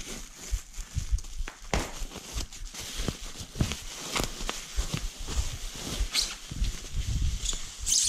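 Plastic bubble wrap rustling and crinkling as it is pulled off a bicycle saddle and seat post by hand, with many small irregular crackles and a louder crinkle near the end.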